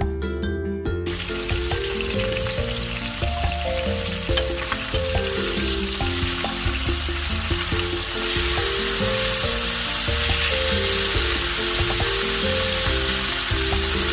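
Chicken frying in hot oil: a steady sizzle that comes in suddenly about a second in and grows a little louder past the middle. Background music plays under it.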